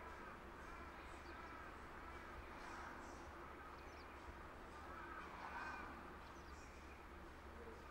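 Crows cawing faintly, a run of short harsh calls repeated several times, over a low steady hum.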